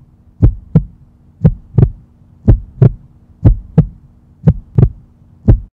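Heartbeat sound effect: paired deep lub-dub thumps about once a second over a faint steady low hum, stopping abruptly after the last beat.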